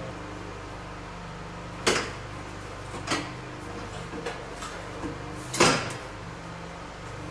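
A few sharp knocks and clanks, as of tools or hard parts being set down or struck: five in all, the loudest about two seconds in and just before six seconds, over a steady low hum.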